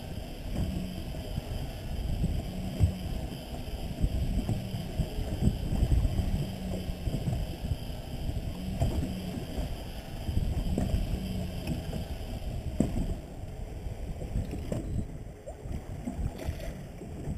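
Wind rushing over the microphone and water slapping against a small boat's hull at sea, with scattered knocks against the boat.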